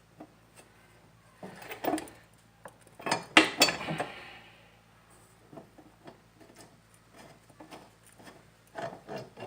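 Metal clinks and knocks of a mounting bolt and metal parts as the bolt is worked against the lawnmower's engine mount, trying to catch a thread it is too short to reach. The loudest knocks come in a cluster about three to four seconds in.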